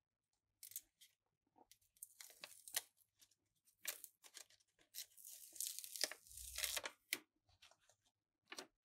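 Paper sticker print being peeled from its backing sheet: quiet crackling and tearing paper sounds, with one longer continuous peel about five seconds in.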